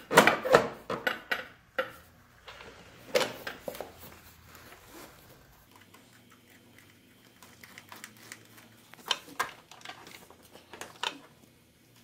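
Light clicks and rattles of a plastic motorcycle body panel and its small metal screws being handled and fitted by hand. The clicks are loudest and busiest in the first two seconds, with another cluster about nine to eleven seconds in.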